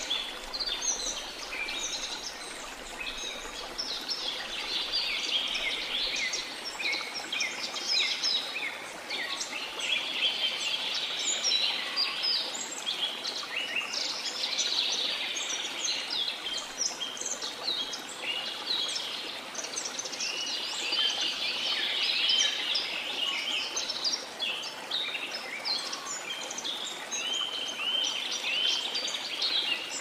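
Many birds chirping and calling in a dense, overlapping chorus over the steady rush of a waterfall.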